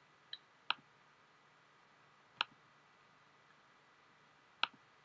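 Computer mouse buttons clicking, four sharp separate clicks at uneven gaps against quiet room tone.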